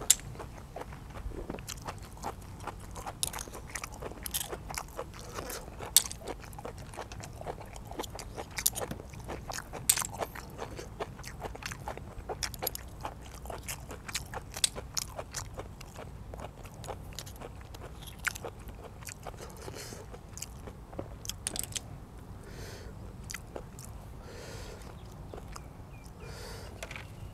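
Close-miked chewing and biting of blanched blood cockles in dipping sauce, with many sharp clicks of cockle shells and a metal spoon that thin out after about twenty seconds, then a few softer mouth sounds near the end.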